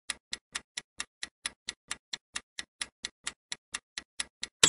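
Countdown-timer ticking sound effect: sharp, evenly spaced ticks, about four and a half a second. Near the end a short, louder electronic tone cuts in.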